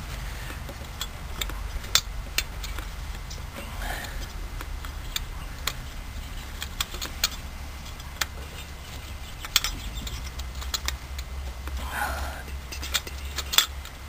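Irregular small metallic clicks and taps as the carburetor's float bowl and parts are handled and wiped by hand, over a steady low hum.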